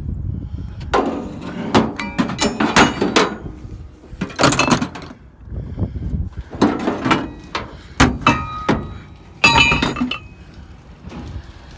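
Metal hand tools clanking and clinking against one another and the bed of a pickup truck as they are put away, in five or so bunches of knocks with a short metallic ring.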